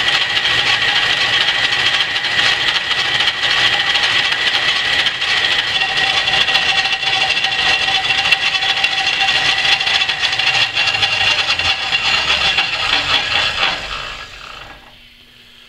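Antique Rockford metal lathe running under a facing cut on a steel plate held in a four-jaw chuck: a steady mechanical running noise with a high gear whine and cutting noise. Near the end the lathe is switched off and winds down to a stop.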